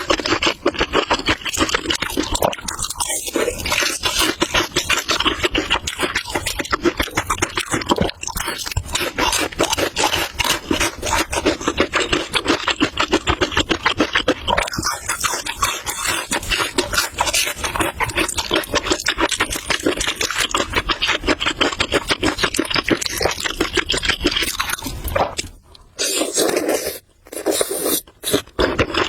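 Close-miked mouth sounds of someone eating noodles: a dense, rapid run of wet slurping and chewing, broken by two brief pauses near the end.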